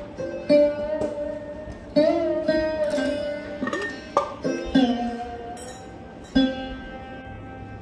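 Background instrumental music: a plucked-string melody in an Indian style, with notes struck about once a second and some sliding in pitch.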